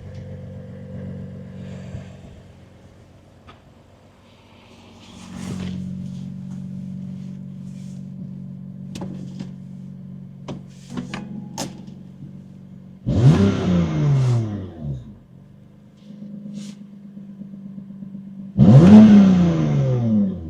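BMW M4 F82's twin-turbo straight-six idling steadily, with a few light clicks midway, then blipped twice: two short, loud revs that flare up and drop back to idle, about halfway through and again near the end.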